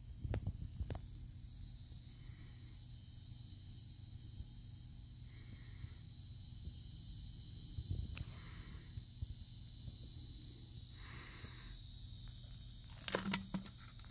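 Steady, even, high insect chirring, with a few soft knocks and a short louder clatter near the end.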